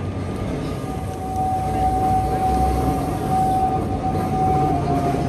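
Vintage electric tram of the Sóller tramway approaching at low speed, with a steady high whine that sets in about a second in and holds, dropping slightly in pitch near the end. Background chatter from people on the promenade.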